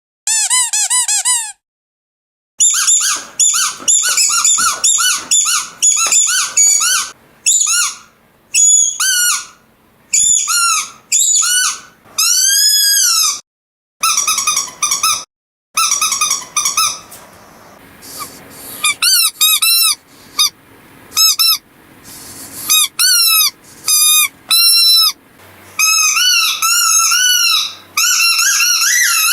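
Squeaky dog toys squeezed over and over: runs of short, high squeaks and some longer squeals that rise and fall in pitch, from several different toys, with brief pauses between runs.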